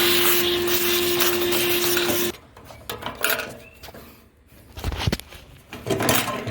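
A loud, steady machine noise with a constant hum cuts off sharply about two seconds in, followed by a few scattered knocks and taps of metal work on the fuel tank's sending-unit lock ring.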